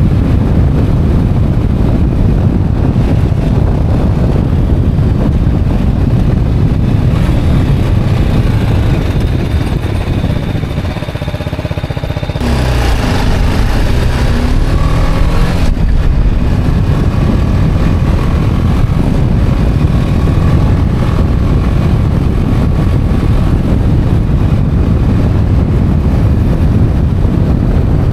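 Motorcycle engine running while riding on the road. About ten seconds in it eases off and goes a little quieter, then at around twelve seconds it accelerates hard, with the engine pitch rising, before settling back to steady cruising.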